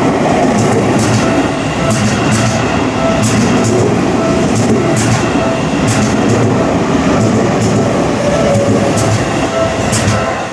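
Seibu Ikebukuro Line train passing over a level crossing: a loud steady rumble with the wheels clacking over the rail joints. The crossing's warning bell rings over it at about two dings a second.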